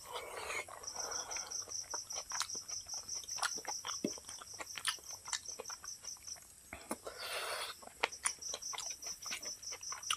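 Close-up eating sounds of a mouthful of rice and dal taken by hand: wet chewing with many short lip and tongue smacks. There are two brief noisy stretches of sucking and slurping, one at the start and one about seven seconds in.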